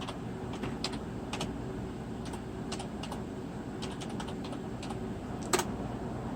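Computer keyboard keys clicking, a dozen or more scattered, irregular keystrokes, with one louder click about five and a half seconds in.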